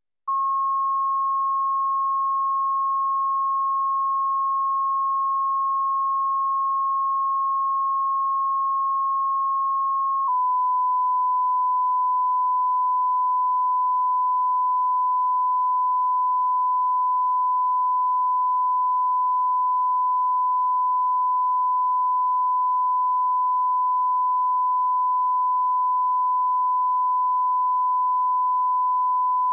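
Steady line-up test tone, a pure beep near 1 kHz, starting a moment in; about ten seconds in it switches to a slightly lower pitch and a little louder, then holds unchanged. It is the reference tone that accompanies colour bars at the head of a broadcast videotape, used for setting audio levels.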